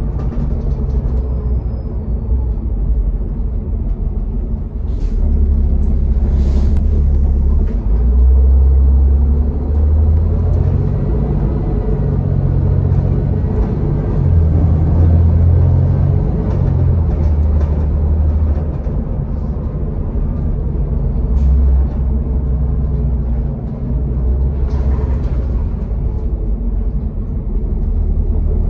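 Inside the cabin of a Denning Phoenix low-floor bus under way: its Caterpillar diesel engine and the road give a deep rumble that swells and eases as the bus accelerates and slows. Two short hisses of air come through, about six seconds in and near the end.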